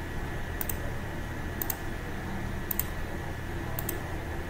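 Computer mouse clicking four times, about once a second, each click a quick press-and-release pair, as snap-mode checkboxes are ticked in a settings dialog. A steady low hum runs underneath.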